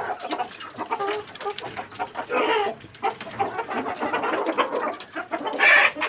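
A flock of Sonali chickens, mostly laying hens, clucking and calling over one another without a break, with louder calls about two and a half seconds in and again near the end.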